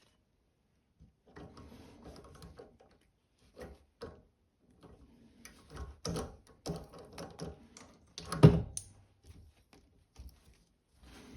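Metal tools clicking and knocking against a workpiece during hand-tapping of an M4 thread with a tap and tap follower. The knocks come irregularly, with the loudest about eight and a half seconds in.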